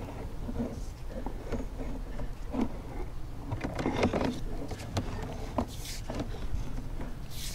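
Drain inspection camera's push cable being fed by hand into a kitchen sink waste line: irregular knocks, clicks and rubbing over a steady low hum, busiest about four seconds in.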